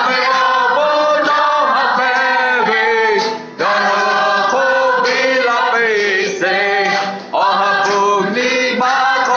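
A group singing an action song in Lahu, led by a strong man's voice, the melody gliding between held notes with short breaks between phrases.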